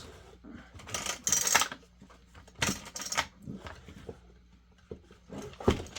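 Small metal parts and tools of a chainsaw being handled, clinking and rattling: two bursts of metallic rattling, about a second in and near the middle, then a sharp knock near the end.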